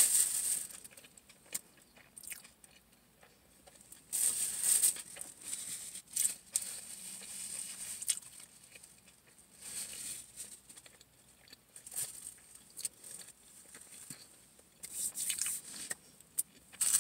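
Paper napkin crinkling and rubbing in short, irregular bursts, with quiet stretches between.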